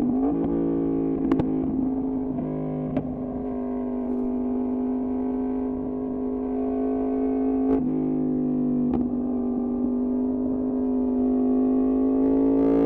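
Yamaha MT-10's crossplane inline-four breathing through an Austin Racing exhaust, held at a steady engine speed, with a few brief sharp clicks. The pitch climbs slightly near the end.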